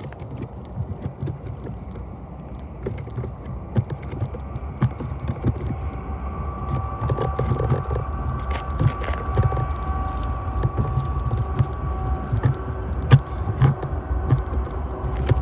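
Freight train passing on the rails: a steady low rumble with scattered rattles and clicks. A faint steady high-pitched tone joins from about six seconds in and fades out around twelve seconds.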